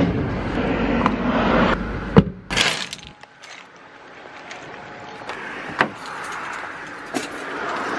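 A steady rushing noise that drops away about two and a half seconds in, with one sharp knock about two seconds in and a few lighter clicks later as a car's boot and door are handled.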